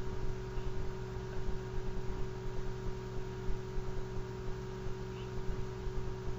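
Steady electrical hum and hiss of the recording setup, made of several constant tones with an uneven low rumble underneath.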